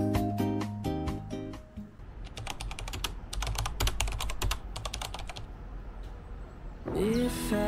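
Keyboard typing sound effect: a rapid run of key clicks lasting a few seconds, after music fades out, with music starting again near the end.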